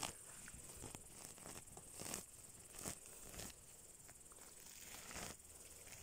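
Faint rustling and crackling of a hand pulling and tearing a cushion of forest moss up from the ground, with short irregular scrapes about once a second.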